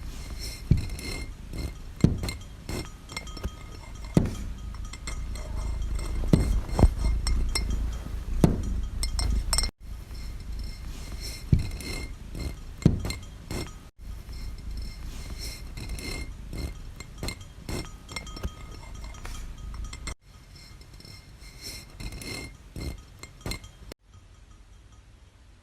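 Irregular clinks and knocks with a high ringing that hangs on, over a low rumble, broken off several times by abrupt cuts; quieter over the last few seconds.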